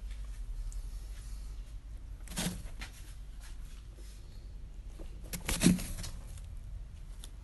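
Two short bursts of rustling in dry hay bedding, about three seconds apart, the second louder.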